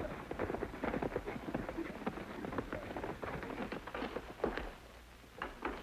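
Hoofbeats of horses being ridden, a quick, dense clatter that thins out about four and a half seconds in, leaving a few single hoof strikes near the end.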